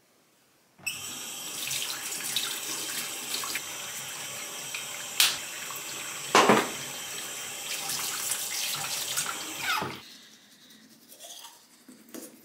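Bathroom sink faucet running into the basin, turned on about a second in and shut off near ten seconds, with two brief louder sounds partway through. Faint small sounds follow after the water stops.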